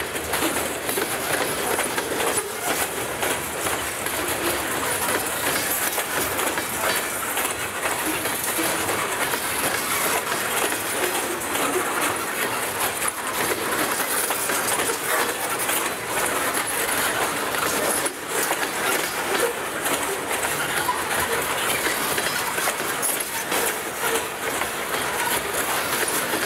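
Freight train of loaded covered grain hopper cars rolling past: steady steel wheel-on-rail rumble with a rapid stream of clicks as the wheels pass over the rails.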